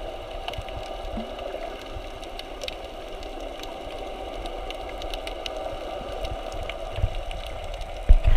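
Underwater ambience: a steady muffled hum with scattered sharp clicks and crackles, and a few heavy low thumps near the end.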